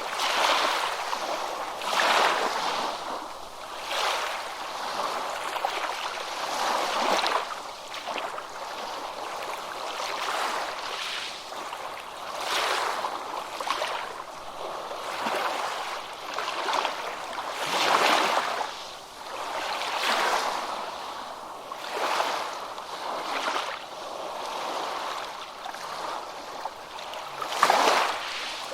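Ocean waves washing onto a beach, a continuous rushing surf that swells and fades every couple of seconds.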